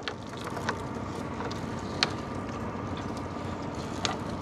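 Steady wash of noise on a small fishing boat as a gill net loaded with fish is hauled aboard, with four short sharp knocks, the loudest about halfway through.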